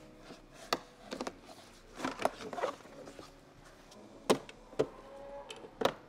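Honda Civic plastic interior trim panels being handled and pried loose: scattered clicks and knocks of plastic, with a quick cluster of them about two seconds in.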